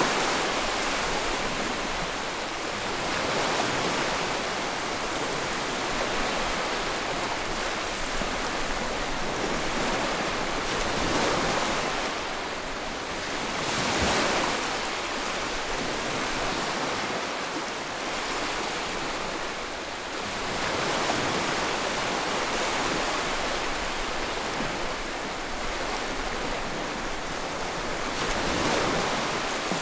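Sea waves breaking on the shore: a continuous rush of surf that swells into a louder break and eases back every few seconds.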